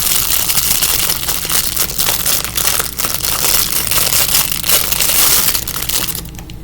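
Plastic packaging crinkling loudly as it is handled and opened by hand, a dense run of crackles that stops just after six seconds in.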